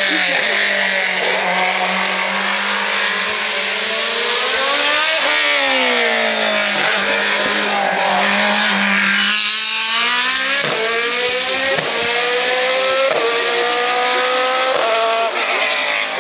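Hillclimb race car engine at high revs, its pitch rising and falling through a corner, then accelerating away with the pitch climbing and dropping back at each of several upshifts in the second half.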